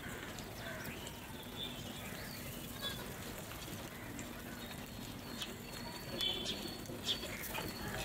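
A flock of house crows giving short scattered caws while feeding, with a few sharp taps of beaks pecking grain in clay bowls, mostly in the second half.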